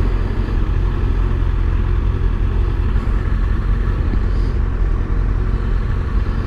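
2024 Kawasaki ZX-6R's 636 cc inline-four engine running steadily at a low, even engine speed in slow traffic.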